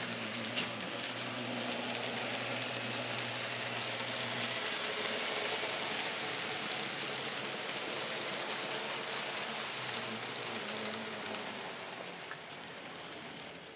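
N scale model freight train rolling past on the layout track: a steady, fine clatter of small metal wheels on rail, with a low hum from the locomotive motors. The sound swells as the train passes and fades near the end.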